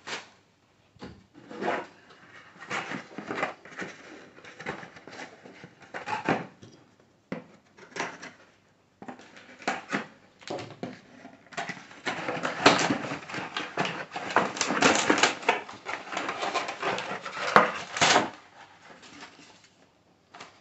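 Cardboard packaging being handled: box flaps and inserts scraped, knocked and slid about in short noisy scuffs, growing busier and louder about halfway through.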